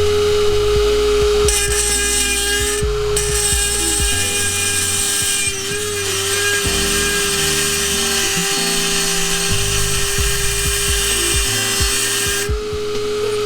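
Dremel 4000 rotary tool with a sanding pad, running at a steady high whine while grinding down the cracked end of an exhaust pipe. The rasp of pad on metal comes and goes in long stretches, breaking off briefly a few times.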